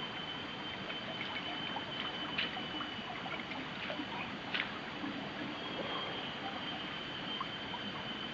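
Shallow stream trickling, with a few small splashes as hands dip into the water.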